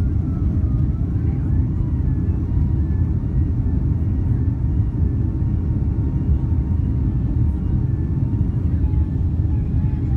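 Boeing 767-300 heard from inside the cabin while climbing out just after takeoff: a steady, loud low rumble from the engines and airflow, with a faint wavering engine whine above it.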